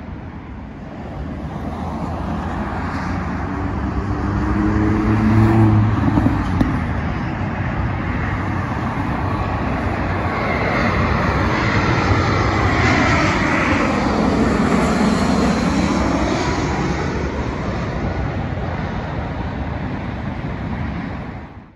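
Jet airliner on low final approach passing overhead, its engine noise swelling and sweeping in pitch as it goes over. Road traffic runs underneath.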